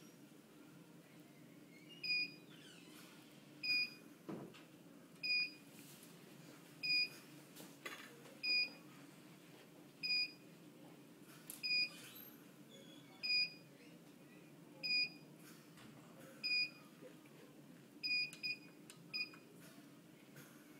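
An electronic device beeping: a short high beep repeating evenly about every second and a half, with two extra beeps close together near the end.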